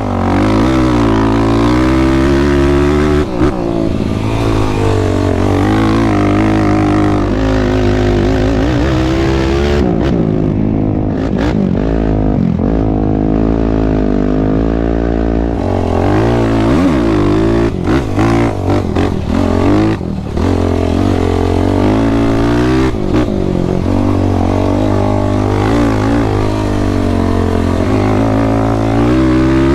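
A sport quad's engine running hard while riding, its pitch rising and falling continually as the throttle is worked, with a few brief drops near the middle.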